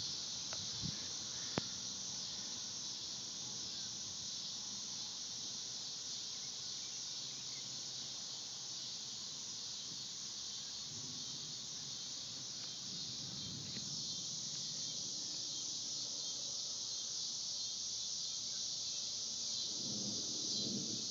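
Steady, high-pitched chorus of insects droning without a break, with a single sharp click about a second and a half in and faint low rumbles about two-thirds through and again near the end.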